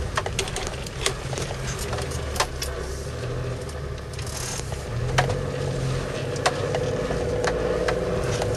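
4x4's engine running at low revs, heard inside the cab while crawling along a rough, rutted dirt track, with frequent short knocks and rattles from the body over the bumps. About five seconds in, a steadier, higher drone joins the engine sound.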